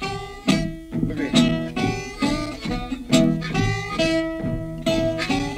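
Acoustic blues guitar played with a slide, picking a driving, repeating figure with notes struck about twice a second.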